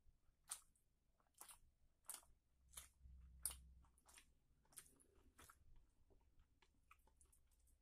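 Faint mouth sounds of chewing a mouthful of chicken curry and rice: wet clicks and smacks about every two-thirds of a second, turning softer and sparser over the last couple of seconds.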